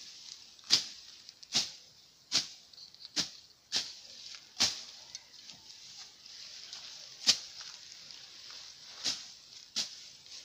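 Footsteps crunching on a trail at a walking pace, about one step every 0.8 seconds, thinning out to a few scattered steps after the middle.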